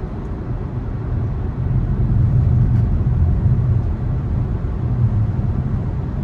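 Low, steady road and tyre rumble inside the cabin of a moving Tesla Model 3, with no engine note; it swells louder about two seconds in, then eases slightly.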